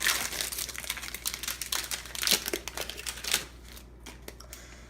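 Foil wrapper of a Pokémon TCG booster pack crinkling as it is opened and handled; the crackling stops about three and a half seconds in, leaving a few light clicks.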